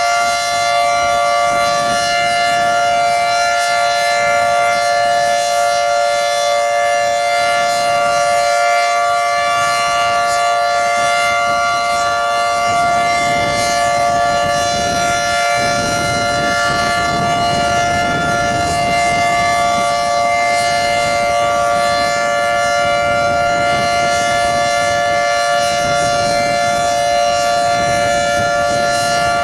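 Federal Signal 2T22 dual-tone electromechanical tornado siren sounding a steady alert tone during its monthly test, a loud two-note chord that holds its pitch.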